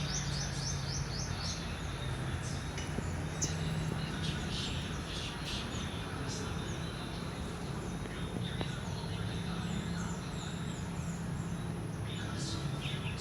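Small birds chirping repeatedly over a steady low hum and background noise.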